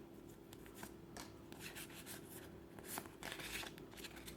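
Faint handling of trading cards fresh from a foil booster pack: light clicks and soft rustles, a little busier about three seconds in, over a faint steady hum.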